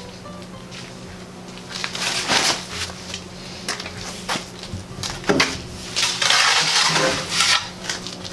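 A shovel scooping and dumping dry cement-and-sand mix into a bucket: scrapes and knocks of the blade, with a longer pour of the dry mix about six seconds in.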